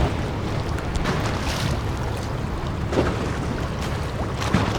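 Harbour ambience: a steady low rumble with wind on the microphone, broken by a few short sharp knocks about a second and a half, three and four and a half seconds in.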